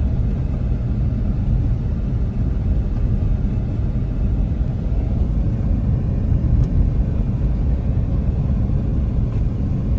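Steady low rumble of a car being driven over a dusty, unpaved construction road, engine and tyre noise heard from inside the cabin.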